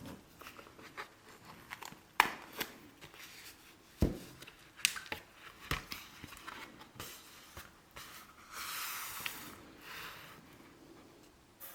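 Hands handling art supplies and packaging on a desk: scattered light clicks and knocks, two sharper knocks about two and four seconds in, and a rustle of paper or wrapping lasting about a second, three-quarters of the way through.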